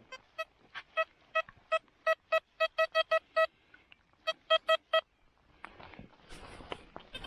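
Metal detector's electronic target tone: a run of about a dozen short mid-pitched beeps that come faster as they go, a pause, then three more beeps. The beeps signal buried metal under the coil.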